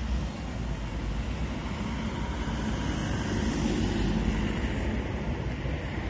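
Road traffic with wind rumbling on the microphone; the traffic swells slightly about halfway through as a vehicle goes by.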